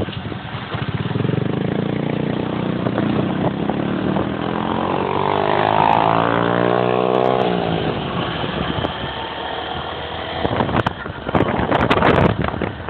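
Vehicle engine running on the move, its pitch rising and then falling away in the middle, with rough noise and knocks near the end.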